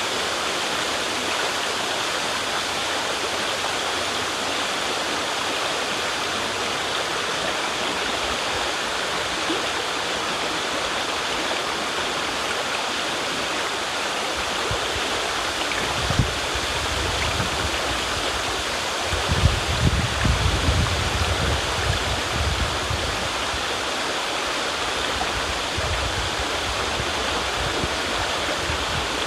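River water rushing steadily, with a few bouts of low rumbling past the middle.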